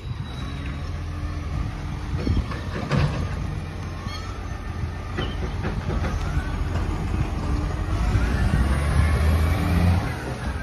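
Steady low engine rumble of a vehicle moving along the street, swelling about eight seconds in, with a few sharp clunks in the first few seconds.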